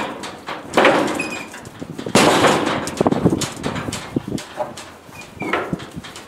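A horse's hooves banging and scrambling on a steel stock trailer's floor, the trailer clanging and rattling with each step. The loudest bangs come about a second in, a cluster from about two to three seconds in, and another near the end.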